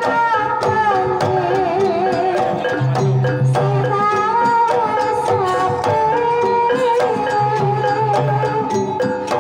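Live Javanese gamelan playing a Banyumasan tayub gending: kendang hand drum, struck metallophones and gongs, with a female sinden singing an ornamented melody over them. A deep low note sounds about every four seconds.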